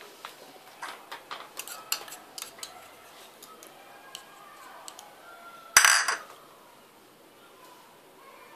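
Puppy eating dry food from a plastic bowl in a wire crate: a quick run of sharp clicks and clinks over the first few seconds, then one loud short rattle about six seconds in.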